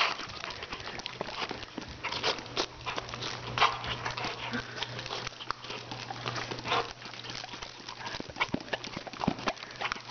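Rottweiler puppy snapping at squirts from a spray bottle: irregular sharp clacks of its jaws and clicks of its claws on a hardwood floor, mixed with short hisses of the bottle spraying.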